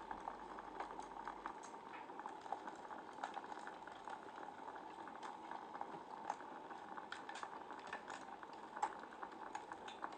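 Wood fire burning in a fireplace: a steady hiss with irregular sharp crackles and pops, one louder pop about nine seconds in.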